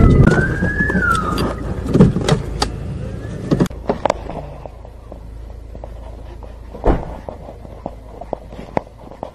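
Cabin noise of a Chevrolet police patrol car, with the siren's rising and falling wail during the first second and a half. About halfway through, a car door and scattered clicks and knocks of someone on foot, with one loud knock near the end.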